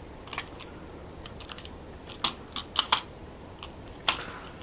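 Irregular small clicks and taps of a hand working the controls on an air rifle and its scope, with the sharpest click about four seconds in.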